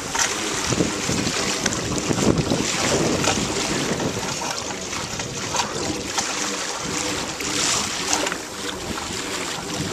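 Wind buffeting the camera's microphone in uneven gusts, over small choppy waves lapping around a kayak.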